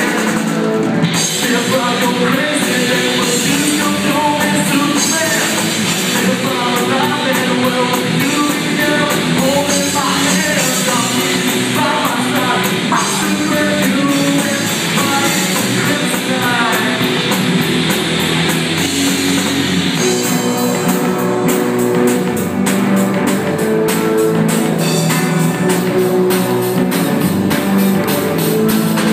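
Live rock band playing: a male singer over electric guitars and a drum kit. The cymbals and drums get busier about two-thirds of the way through.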